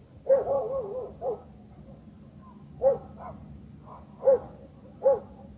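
A dog barking: a short wavering yelp near the start, then about five single barks spaced a second or so apart.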